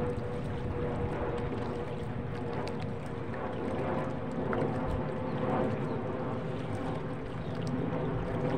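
A small boat motor running steadily at an even speed, a continuous hum over a low rumble.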